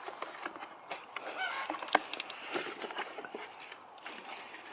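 A cardboard box and nylon stuff sack being handled as a BioLite stove is unpacked: irregular rustling and scraping with scattered clicks, and one sharp knock about two seconds in.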